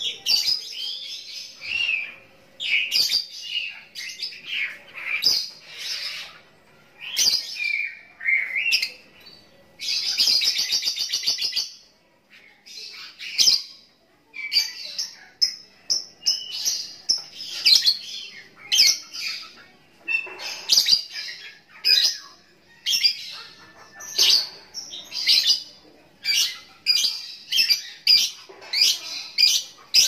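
Lovebird singing in long runs of shrill chirps and twitters, with a rapid buzzing trill about ten seconds in.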